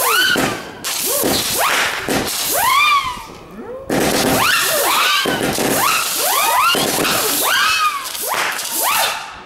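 Ground fireworks whistling: many short overlapping whistles, each rising and then falling in pitch, over a steady hiss of spraying sparks. The sound eases off for about a second around four seconds in, then starts up again.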